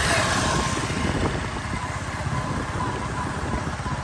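A motorcycle engine running close by, loudest as it passes at the start, then settling into a steady low engine rumble.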